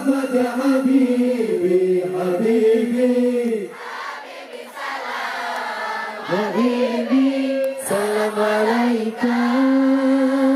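A group of men's and boys' voices chanting sholawat together through a PA, in long held notes that step up and down in pitch. It grows quieter for a couple of seconds about four seconds in, then swells again.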